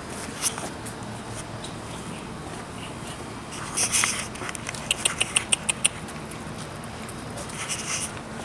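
Puppies squeaking: a squeal about four seconds in, then a quick run of about eight short high-pitched squeaks, and another squeal near the end.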